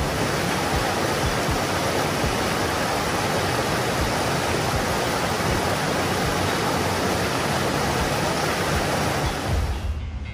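Mountain river rushing over boulders in small cascades: a steady, loud rush of water that starts abruptly and cuts off near the end.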